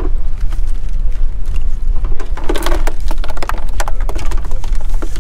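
Wind buffeting the microphone, a loud, steady low rumble, with scattered clicks and knocks from handling that come thicker in the second half.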